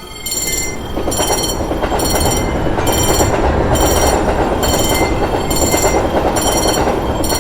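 Railroad crossing warning bell ringing over and over, a little more than once a second, while a train passes through the crossing from about a second in, its running noise growing to be the loudest sound.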